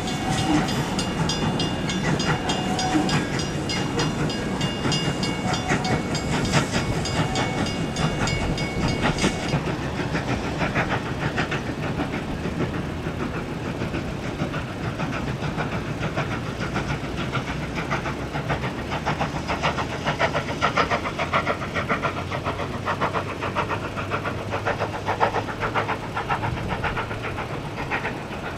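A level crossing bell rings steadily, then stops about nine seconds in. Cars pass over the crossing, and the steam locomotive is heard working hard in the distance.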